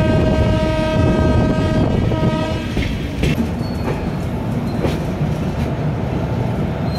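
Locomotive horn sounding one long blast of about two seconds, then a short second blast, over the steady rumble and clickety-clack of a moving train's wheels on the rails. A few sharp knocks from rail joints follow later, heard from the open doorway of the moving coach.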